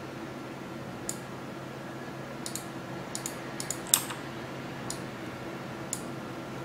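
Computer keyboard keys and mouse buttons clicking, about eight scattered taps with the loudest about four seconds in, over a steady low hum.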